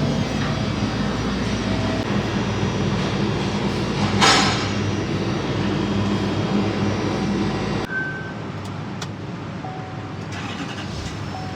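2016 Chevrolet Duramax 6.6 L diesel engine running steadily, with a brief burst of hiss about four seconds in. The engine sound stops abruptly about eight seconds in, leaving quieter background noise.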